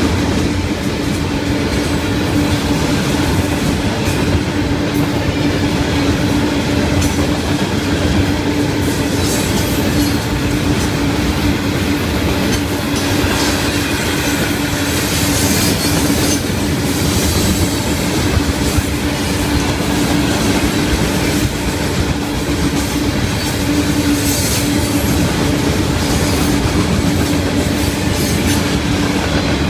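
Freight train of open hopper cars rolling past close by, a loud, steady rumble and clatter of steel wheels on rail. A steady low tone runs through it, with a little more high-pitched rattling about halfway.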